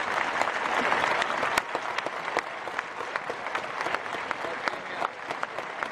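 Spectators applauding, a dense patter for about the first second and a half, then thinning to scattered claps.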